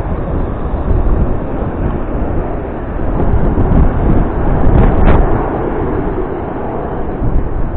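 Wind buffeting the microphone, a loud, uneven rumble, with one short sharp knock about five seconds in.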